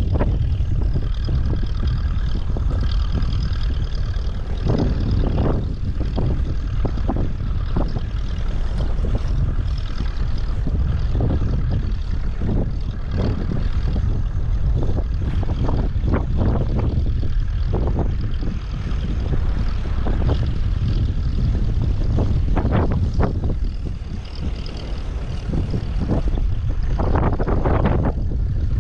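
Wind buffeting the microphone: a constant heavy low rumble with irregular gusty thumps.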